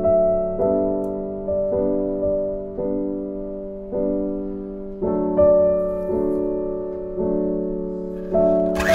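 Slow piano background music, with notes and chords struck about once a second and left to ring. Right at the end an electric hand mixer starts whirring loudly.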